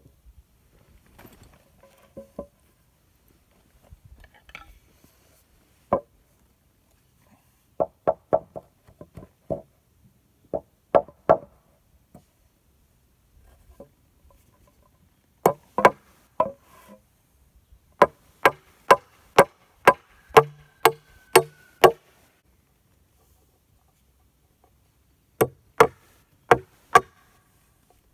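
Hammer nailing 2x6 boards together at the corners of a wooden raised garden bed frame: short runs of sharp strikes with pauses between, the longest run going at about two blows a second.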